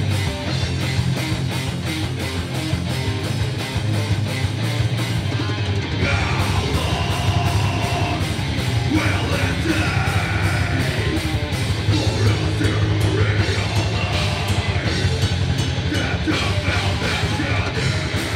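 A live heavy rock band playing: distorted electric guitars, bass and busy drums with heavy cymbals. A singer's vocal comes in about six seconds in.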